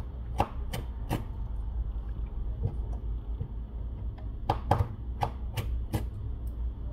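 Sharp plastic clicks as a phone's plastic midframe cover is worked loose by hand and its clips snap free of the chassis. There are three clicks near the start, then a quicker run of five or six about four and a half seconds in.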